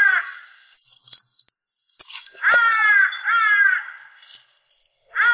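A crow cawing in pairs of harsh caws. The end of one pair falls at the start, and another pair of caws comes about two and a half seconds in.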